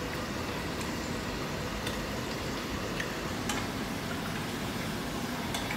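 Steady background noise hum and hiss, with a few faint light clicks.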